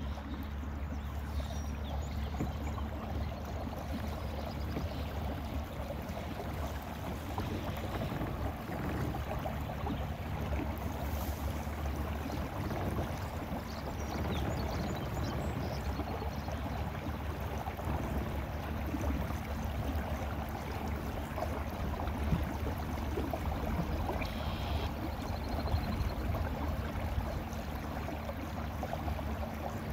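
Minn Kota electric trolling motor on a fishing kayak running with a steady low hum, with water rushing and splashing along the hull as the boat moves.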